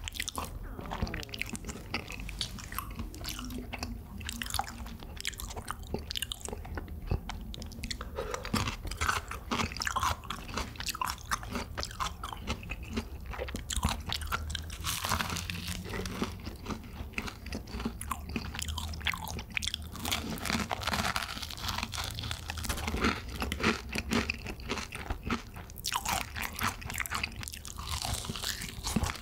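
Close-miked crunching and chewing of fried chicken with a crisp, powder-seasoned coating (BHC Bburinkle): irregular crackles of the crust between bites, with wet chewing.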